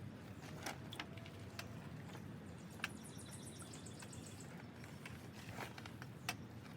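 Small fire of wet tulip poplar in a hobo stove crackling faintly: a few scattered single pops and ticks over a low steady background hiss.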